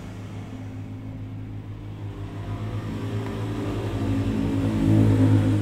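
A motor running with a steady low hum that grows louder, loudest near the end.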